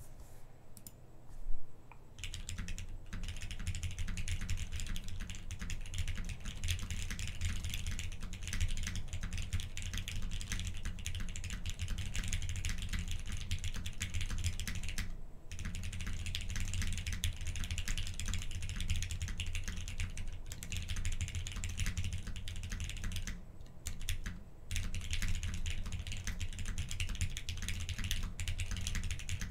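Continuous fast typing on a Gok 7V mechanical keyboard with lubed Hyperglide MX Black linear switches, a polycarbonate flex plate and CRP keycaps, the key presses running together in a dense clatter with two brief pauses. A single sharp knock comes just before the typing starts.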